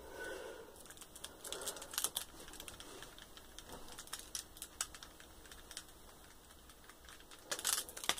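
A metal toy cap gun being handled and worked, giving faint, irregular light clicks and rattles, with a louder cluster of clicks near the end.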